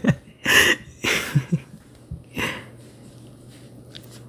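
A man laughing softly: a few short breathy exhalations and a brief voiced chuckle in the first half, then quiet with only a faint low steady hum.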